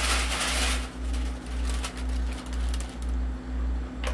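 A brief rustling hiss in the first second as loose glitter and paper are handled, over a steady deep throb pulsing about twice a second, with a short click near the end.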